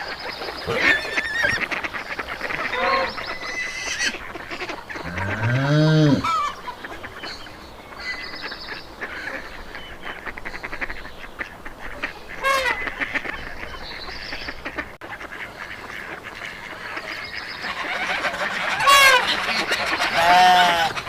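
Farm animal calls, several separate ones: a long, low call that rises and falls about five seconds in, then shorter, higher calls a little past halfway and again near the end, over a steady background hiss.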